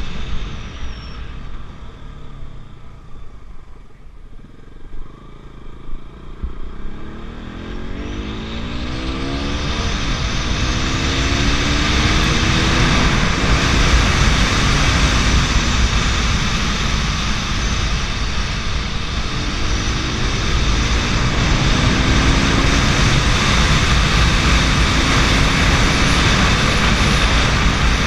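KTM RC 200's single-cylinder engine under way, its note climbing in repeated rising pulls as the bike accelerates. Heavy wind rush over the microphone builds from about a third of the way in and stays loud.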